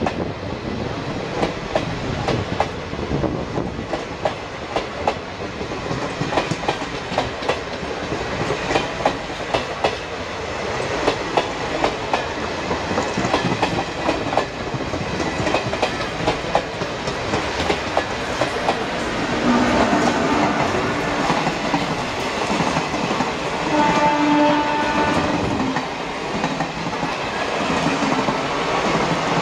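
Indian Railways passenger coaches rolling past, their wheels clicking steadily over the rail joints. Around two-thirds of the way through, a locomotive horn sounds twice, each time for a second or so.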